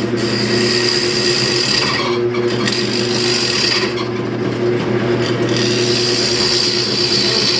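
Wood lathe running steadily while a turning tool cuts a spinning wooden bowl, with a scraping, hissing cut over the motor hum. The cutting sound stops briefly twice, about two seconds in and again around four to five seconds in, while the motor runs on.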